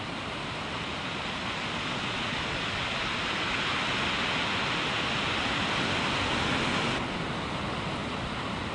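Surf washing in over the shore, a steady rushing that swells over the first six seconds and drops suddenly about seven seconds in.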